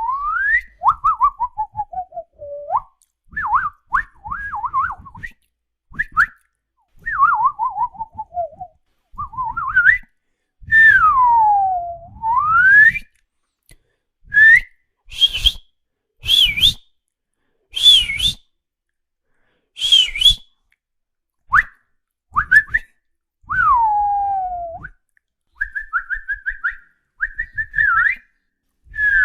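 Whistling in a string of separate phrases: long falling and rising swoops, warbling trills, and in the middle a run of short, sharp high-pitched calls. It is meant as an attention-getting sound to make a dog curious.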